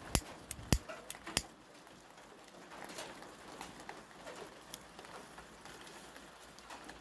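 A few sharp clicks in the first second and a half, then faint outdoor background with a bird calling, cooing like a dove.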